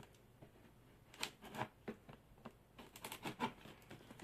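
Cardboard package being handled and picked open: faint scattered taps, scrapes and rustles, coming more thickly near the end.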